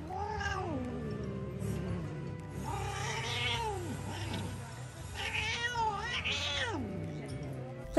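A female cat in heat yowling in three long, drawn-out calls that rise and then fall in pitch, the last one wavering, while she is pressed at the pressure point near the base of her tail. This is the caterwauling of a queen in heat, which can sound like pain but is not.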